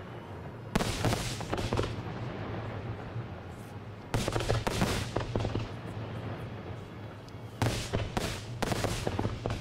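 Aerial fireworks shells bursting in loud bangs, in clusters about a second in, around four to five seconds, and again near the end, with crackling between the bursts.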